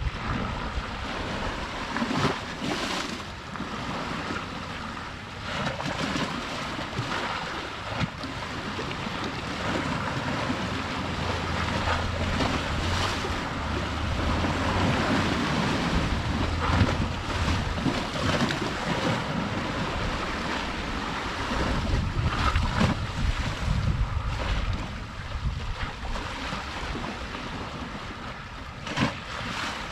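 Sea waves washing against the shore, with wind gusting across the microphone as an uneven low rumble.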